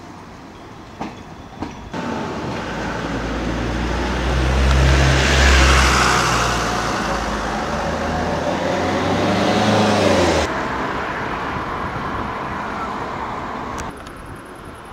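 A vehicle passing close by: a low hum under a rushing noise that swells to a peak about five seconds in, then drops off sharply about ten seconds in.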